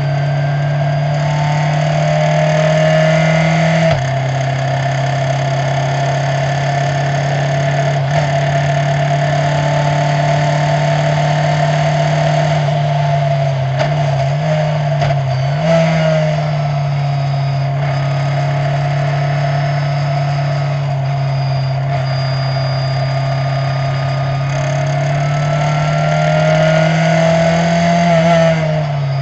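Onboard sound of a Skip Barber open-wheel racing school car's engine running hard at speed. Its pitch changes with the gear shifts: a sharp drop about four seconds in, a wavering stretch midway, then a slow climb that falls off just before the end.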